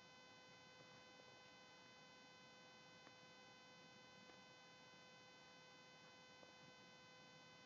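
Near silence: a faint, steady electrical hum made of several even tones, with a few faint ticks.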